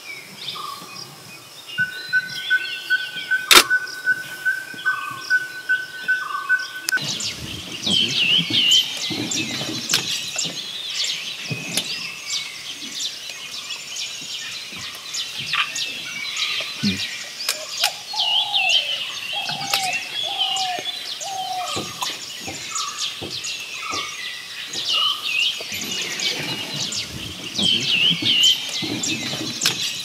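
Mixed wild bird calls. At first a short note repeats about once a second over a steady whistle, with a single sharp click a few seconds in. Then a busy chorus of high chirps takes over, with a run of four lower, falling calls about two-thirds of the way through.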